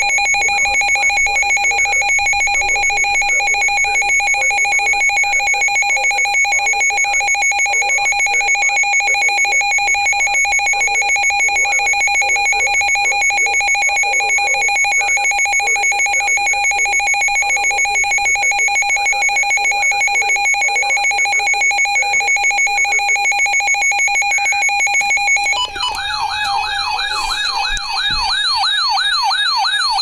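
NOAA weather radio alarm sounding for a tornado warning: a loud, steady, rapidly pulsing high tone. About 25 seconds in it changes to a warbling tone that rises and falls about three times a second.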